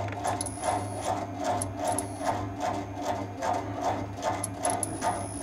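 Tense cartoon soundtrack cue: a repetitive, mechanical-sounding pulse of about two to three beats a second over a low throbbing bass.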